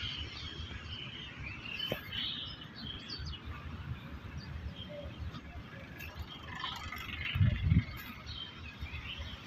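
Small birds chirping now and then over steady outdoor background noise, with a brief low rumble about seven and a half seconds in.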